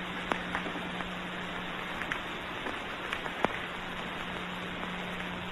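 Surface noise of an old film soundtrack: a steady hiss with a constant low hum, broken by a few scattered clicks and crackles, the sharpest about three and a half seconds in.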